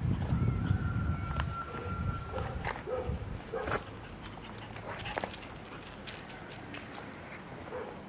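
Cricket chirping in a steady run of short, high, evenly spaced pulses. There is a low rumble over the first three seconds and a few light clicks scattered through.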